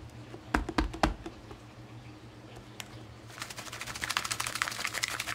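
A red plastic lid snapping onto a glass food-storage container with a few clicks. Then, from about three seconds in, dry spice rub rattling fast and steadily as the closed container is shaken to mix it.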